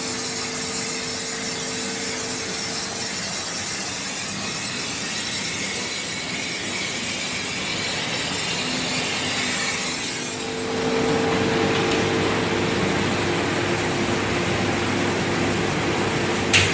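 Steady machine noise of an extruded-snack processing line running: a wide hiss over a low hum. The noise changes and grows louder about ten seconds in, and there is one sharp click near the end.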